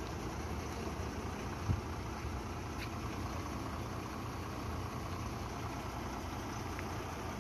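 Diesel truck engine idling steadily, a low even hum, with one short knock a little under two seconds in.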